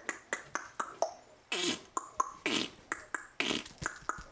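A quick, irregular run of sharp clicks, about four a second, with three short breathy voice sounds that fall in pitch.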